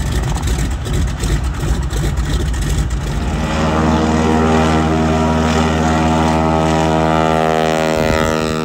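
Single-engine floatplane at full takeoff power as it runs across the water on its floats: a rough, noisy start, then about three seconds in the engine and propeller settle into a loud, steady drone with many even tones.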